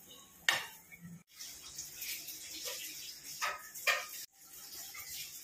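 A spoon scraping through thick, wet food, a few short scrapes.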